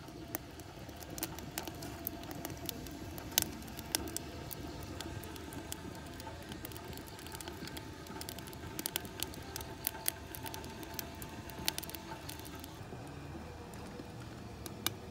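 Wood fire burning in a stainless steel camping rocket stove, crackling with many irregular sharp pops and snaps, the loudest about three seconds in.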